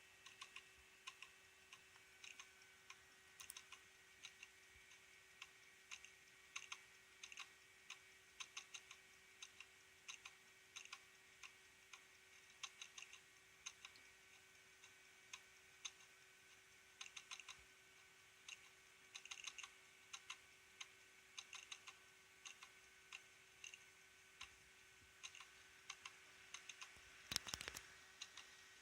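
Failing hard disk drive clicking in irregular rapid runs, a 'kakakaka' ticking over a steady hum, with a louder clatter near the end. The clicking comes with a drive whose hardware ECC errors and reallocated sectors are climbing fast: the disk is failing.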